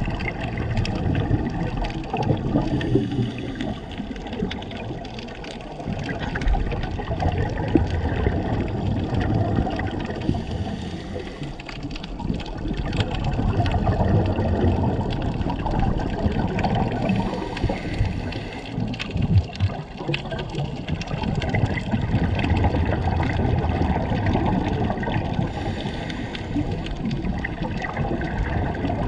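Muffled underwater water noise heard through a diving camera's housing: water rushing and bubbling, swelling and fading every several seconds, with scattered small clicks.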